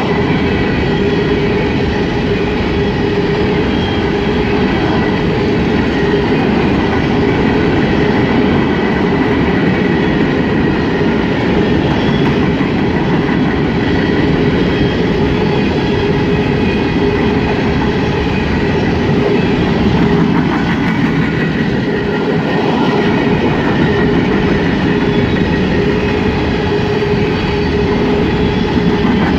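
Empty coal hopper cars of a CSX freight train rolling past, steel wheels running steadily on the rail in a loud, even noise, with a thin steady tone riding on top.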